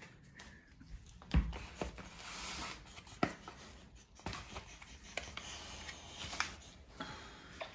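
Foam meat trays wrapped in cling film being handled and laid out on a tile floor: crinkling plastic with a string of sharp clicks and knocks, the loudest a dull knock about a second and a half in.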